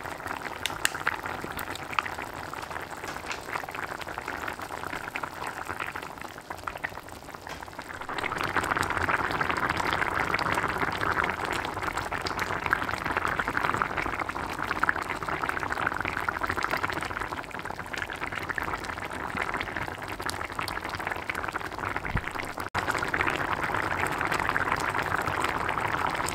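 Korean pork soft tofu stew (sundubu-jjigae) boiling in a pan: a steady crackle of popping bubbles that grows louder about eight seconds in.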